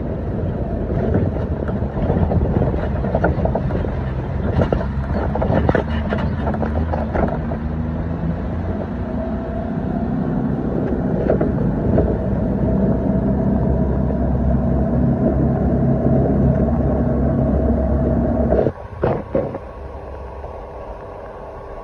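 An engine running steadily, which stops abruptly about nineteen seconds in, leaving a few clicks.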